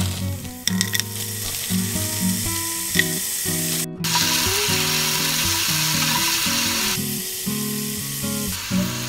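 Carrot strips sizzling in hot oil in a frying pan. About four seconds in, frozen shimeji mushrooms go into the oil and the sizzle gets louder, easing about three seconds later. It rises again near the end as more mushrooms are added. Background music plays throughout.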